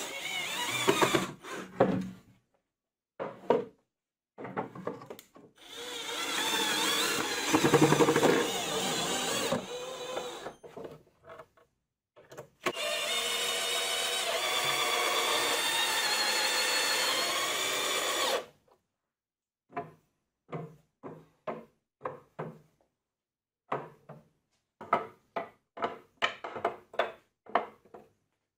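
Cordless drill run in several bursts, drilling into plywood, the longest a steady whine of about six seconds. After it, a quick series of short wooden knocks and clicks as lathe turning tools are set into the wooden rack.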